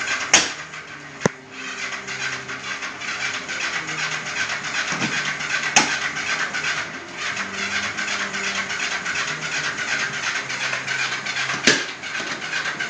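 Yamaha XS400 parallel-twin engine being cranked over on its electric starter without catching, in long runs of fast, even pulses with short breaks about a second in and around seven seconds. There are a few sharp clicks. The engine turns over but will not run despite good compression and spark.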